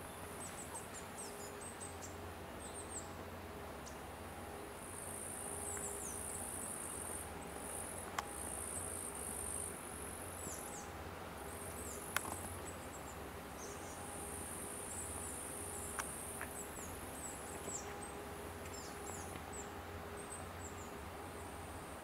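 Summer insects chirring in high-pitched stretches of a few seconds each, over a steady low hum. Short high chirps and a few faint clicks are scattered through it.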